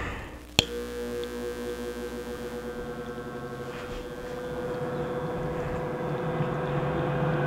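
A 6-inch inline duct fan switched on with a click, then running up to speed: a steady hum with a whining tone that slowly grows louder, and a higher tone edging upward near the end as the fan speeds up.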